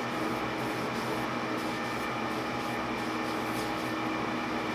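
Steady machine-shop hum with a constant drone and fixed tones, and light rubbing as a cloth shop rag wipes a steel lathe test bar.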